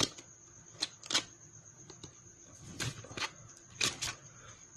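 A phone's retail box being opened and handled by hand: a scattered series of sharp clicks and taps as the lid and packaging are moved.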